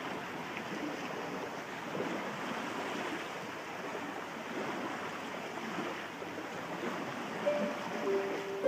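Small waves of a calm sea washing onto a stony shore, a steady hiss that gently swells and eases. Harp notes come in near the end.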